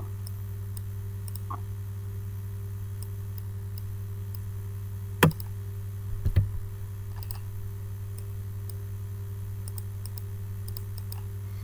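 Computer mouse clicking: one sharp click about five seconds in and a few duller knocks about a second later, with faint small ticks, over a steady low hum.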